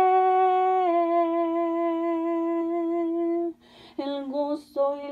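A woman's voice singing a cappella, holding one long wordless note that steps down slightly about a second in and ends after about three and a half seconds. After a breath, short sung notes begin the next phrase near the end.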